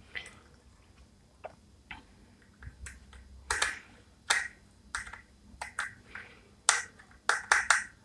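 Small screwdriver clicking and scraping against the screw of a ceiling fan's wire terminal block as a wire is tightened in. There are about a dozen short, sharp clicks at irregular intervals, coming quicker near the end.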